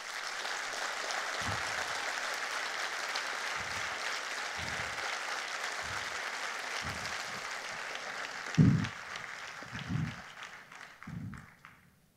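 Audience applause that fades away toward the end, with a low thump every second or so, the loudest about two-thirds of the way through.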